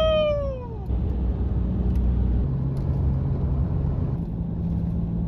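Steady low road and engine rumble of a moving car heard from inside. It is overlaid at first by a high-pitched tone that rises and falls in pitch and fades out about a second in.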